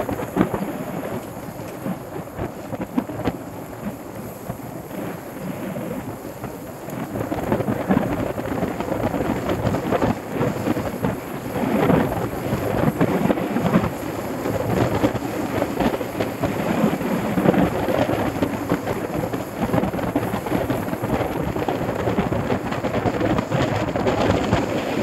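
Wind buffeting and tyre rumble on a bike-mounted action camera's microphone as a mountain bike rides over a dirt road, a rough steady rushing that grows louder about a third of the way in.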